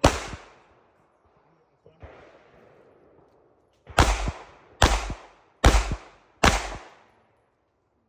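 Pistol shots: one at the start, a quieter report about two seconds in, then four shots in a steady string about 0.8 s apart, each cracking sharply and dying away quickly.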